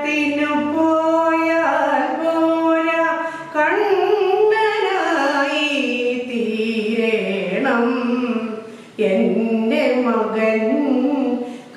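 A woman singing solo, a slow Krishna devotional song, holding long notes and sliding between them, with a short breath pause just before the ninth second.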